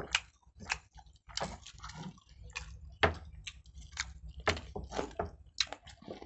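Wet eating sounds of chicken pulao being eaten by hand: irregular chewing and lip smacks, several a second, close to clip-on microphones.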